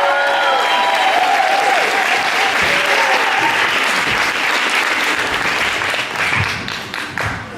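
Audience applauding at a show, with the clapping dying down near the end.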